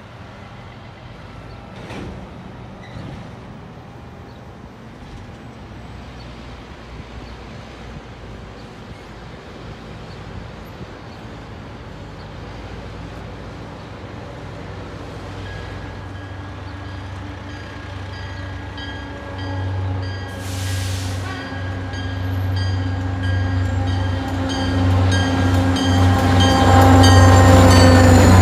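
Diesel locomotive of an MBTA commuter train approaching. Its engine hum comes in about two-thirds of the way through and grows steadily louder as the train draws close near the end, with a high, rapidly repeating ringing over the last few seconds. Before that there is only a low background rumble.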